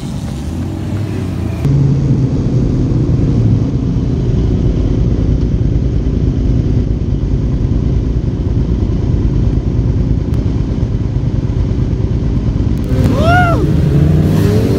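Petrol sport motorcycle engines running together at low revs, a steady rumble. Near the end one engine is blipped, its pitch rising and falling quickly.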